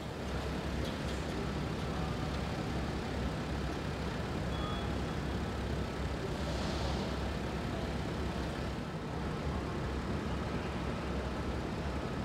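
A car engine idling steadily, a low rumble under the even hiss of assembly-hall noise.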